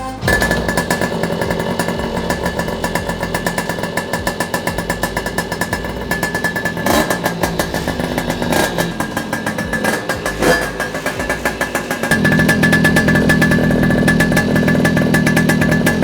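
Puch Maxi moped's small two-stroke engine running through a Tecno Snake expansion exhaust, with a rapid, even firing rattle. About three-quarters of the way through the throttle is opened and the engine runs louder and higher.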